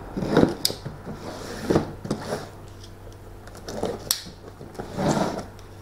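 A knife slitting the tape on a cardboard box, with scrapes, rustles and knocks of the box being turned over on a bench, in several separate bursts.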